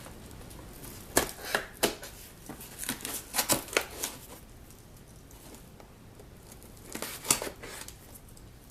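Shipping package being opened by hand: sharp tearing, snipping and crinkling of packaging in short bursts, a few about a second in, a busy cluster around three to four seconds in, and another near the end.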